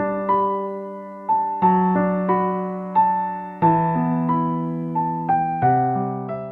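Gentle electric piano music: single notes and chords struck one after another, each ringing and fading, at an easy pace.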